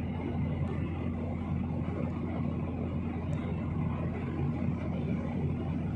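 Steady cabin noise of a jet airliner in flight: the drone of its engines and the rush of air past the fuselage, with a constant low hum underneath.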